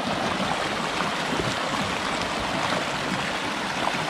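Shallow, clear stream rushing over stones close by, with light splashing as hands are washed in the current.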